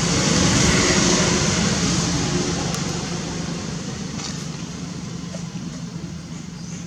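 Steady rushing noise with a low hum underneath, loudest about a second in and then slowly fading.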